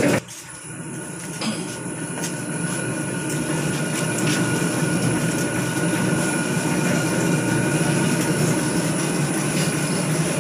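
Candlenut cracking machine running: a steady mechanical rumble and rattle with a thin, high steady whine. It grows louder over the first two seconds or so, then holds steady.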